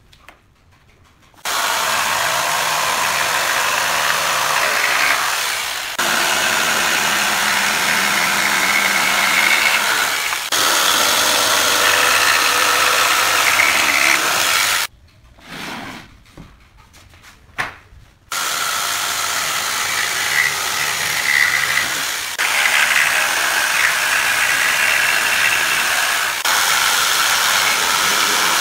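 Electric jigsaw sawing through wooden pallet boards, a loud steady buzz of the blade cutting. It starts about a second and a half in, stops for a few seconds in the middle with only faint small knocks, then cuts again.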